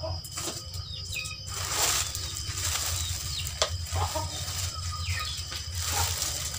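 Birds chirping in short falling notes over a steady low pulsing hum, with two brief rushing noises.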